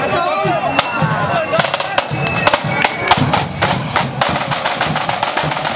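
Marching flute band's side drums playing a fast beat with rolls, many sharp strokes close together.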